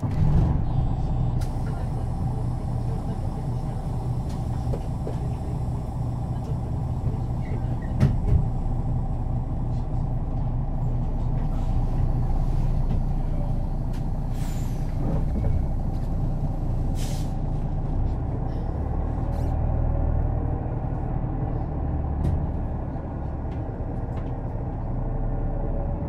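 Setra S 315 NF bus's diesel engine running with a steady low drone. A knock comes about a third of the way in, and short hisses of compressed air come a little past halfway.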